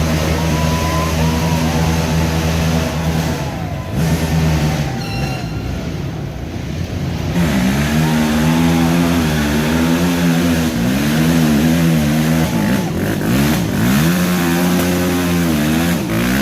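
Racing ATV engines running at high revs, steady at first; about halfway through, the engine revs up and down again and again as the throttle is worked.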